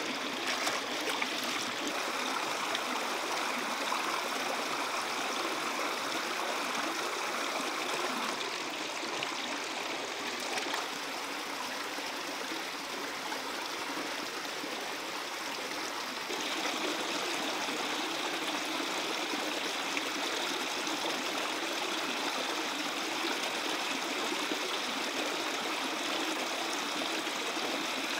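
Shallow rocky creek running over stones and a small cascade: a steady rush of water, a little louder from about two-thirds of the way through.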